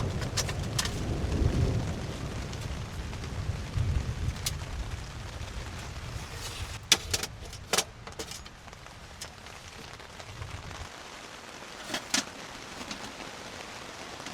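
Steady rain with a low rumble of thunder that is strongest at the start, fades and dies away about eleven seconds in. A few sharp clicks come through the rain, several of them close together in the middle and near the end.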